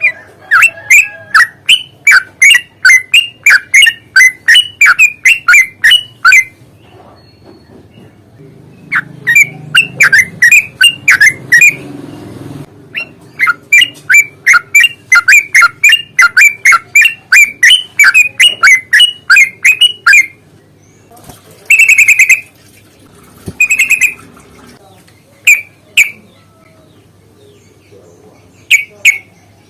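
Yellow-vented bulbul (trucukan) singing in long runs of rapid, repeated chirping notes, about three a second, in three bouts, the 'ropel panjang' fighting song. Near the end come a few separate, harsher single calls.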